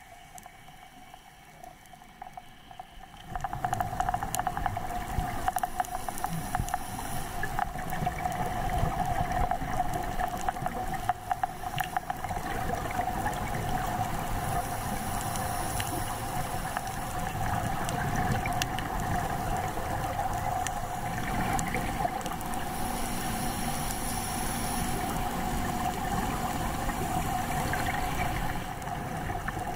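Underwater sound picked up by a diving camera on a coral reef: a steady droning hum with an even hiss and scattered sharp clicks. It starts suddenly about three seconds in and runs unchanged after that.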